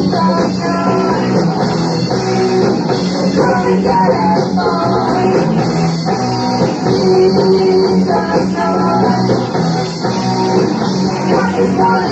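A live rock band playing loudly: electric guitars over bass and a drum kit.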